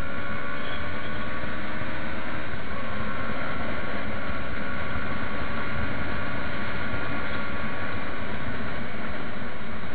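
Motorcycle engine running at a steady cruising speed, with a steady engine note under a constant rush of wind noise.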